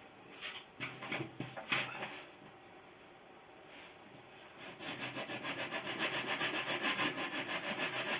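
Hand sanding block rubbed on the end of a wooden wing rib to sand a slightly proud strip flush. A few scattered rubs come first, then from about five seconds in quick, even back-and-forth strokes, about four a second.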